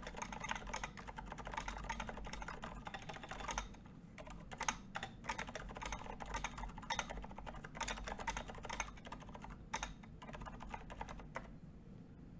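Typing on a custom Exent mechanical keyboard fitted with 67g Zilents silent tactile switches and SA-profile keycaps. A fast, dense run of keystrokes has a short lull about four seconds in, then thins out and stops shortly before the end.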